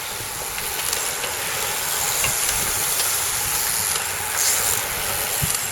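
A group of racing bicycles passing close by, their tyres and freewheels making a steady hiss that swells in the middle and flares briefly near the end.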